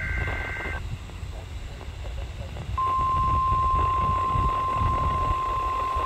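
NOAA Weather Radio test received on a handheld weather-band radio's speaker. The last burst of the EAS SAME data header, a buzzing two-pitch digital tone, ends just under a second in, leaving radio static. About three seconds in, the steady single-pitch 1050 Hz weather radio warning alarm tone starts and holds.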